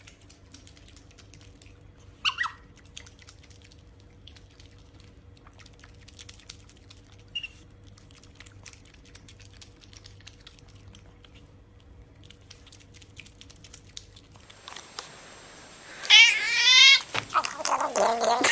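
A cat meowing: one brief call about two seconds in, then, after a change in background, loud drawn-out meows that rise in pitch near the end.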